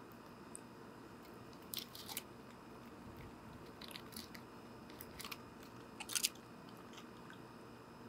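A squirrel on a bird feeder cracking and chewing seeds right at the microphone: a few bursts of sharp crunches, the loudest a little after six seconds in.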